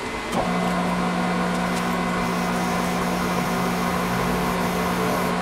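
Milling machine spindle running with a countersink cutting into a steel block. About half a second in, the hum changes pitch and gets louder, then holds steady while the cut goes on.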